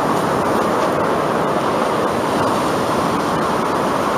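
Steady, even rush of ocean surf washing onto the shore.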